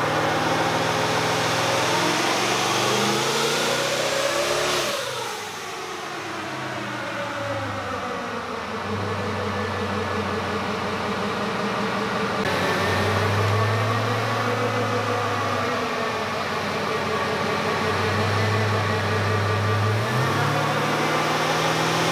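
Twin-turbo LS V8 in a Toyota 80 Series LandCruiser running on a chassis dyno. Its revs climb over the first five seconds, drop away sharply, and it keeps running with the revs rising and falling through the rest.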